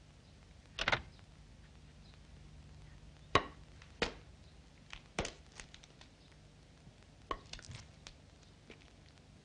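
A handful of sharp knocks and clicks at uneven intervals, the loudest about a second in and about three and a half seconds in, over a faint low hum.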